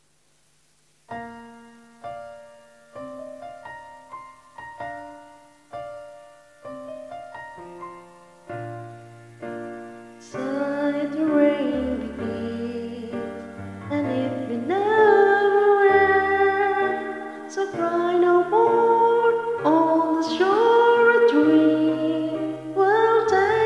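Electric piano playing a slow ballad intro, each chord struck and left to fade, about once a second. From about ten seconds in it grows louder and fuller and a woman starts singing over it.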